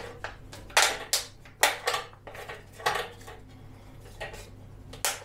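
A thin PET plastic bottle crackling and clacking as it is pressed and worked onto a plastic dust chute by hand: a run of sharp, irregular clicks.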